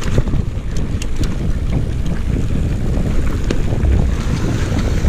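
Mountain bike riding down a rocky dirt trail: a steady rumble of tyres and wind buffeting the microphone, with many small clicks and knocks from the bike rattling over the ground.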